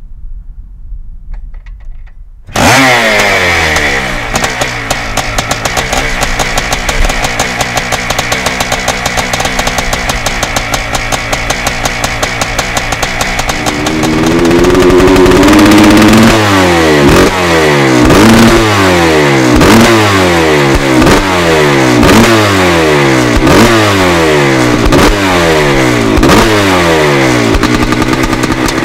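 1987 Yamaha YZ490's single-cylinder two-stroke engine firing up about two and a half seconds in and running steadily. From about halfway it is revved in repeated throttle blips, a little over a second apart.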